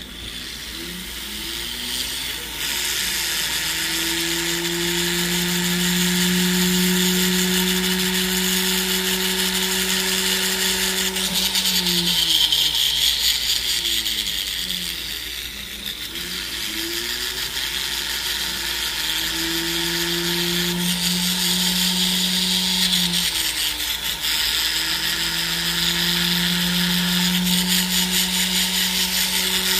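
Jeweler's rotary tool spinning with a steady hum and a grinding hiss as a soldered necklace joint is ground and blended smooth. The motor slows and spins back up three times, about 11, 15 and 23 seconds in.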